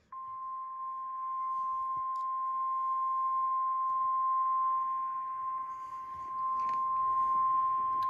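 NOAA Weather Radio's 1050 Hz warning alarm tone: one long steady beep from a weather radio receiver's speaker, the alert signal that a severe thunderstorm warning is about to be read.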